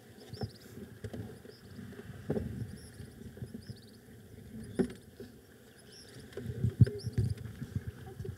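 Low rustling and a few soft thumps, with small birds chirping faintly and repeatedly in the background.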